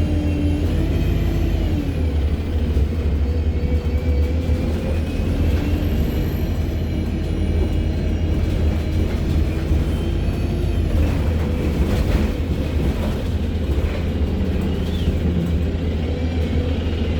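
ADL Enviro200 MMC bus under way: a steady low engine drone with a high turbocharger whine that rises and falls three times, along with the whine of its Voith automatic gearbox. A few clicks and rattles come about two-thirds of the way through.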